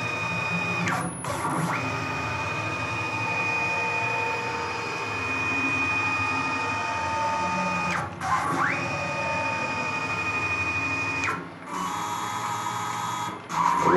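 Stepper motor on a CNC-converted Grizzly G0704 mill driving the X-axis table along its ball screw, jogged in three runs with short pauses between them. Each run is a steady high whine, and the pitch rises quickly as the motor speeds up again.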